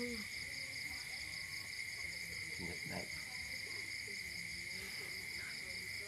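Steady night chorus of insects, a continuous high-pitched trilling at several pitches at once, with faint voices in the background.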